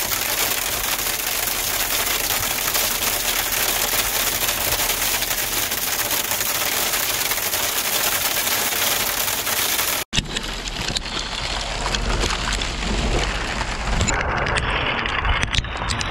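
Hail and rain pelting down in a steady, dense hiss. About ten seconds in the sound cuts out for an instant, then comes back duller with a low rumble underneath.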